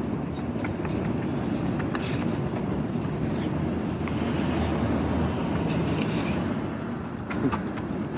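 Steady low rumbling outdoor background noise with a few faint clicks, without words.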